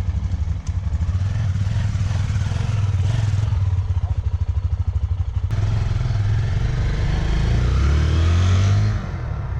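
Honda XR250 dirt bike's single-cylinder four-stroke engine running with a fast, even pulsing beat. About halfway through the sound changes abruptly to a smoother, steadier run.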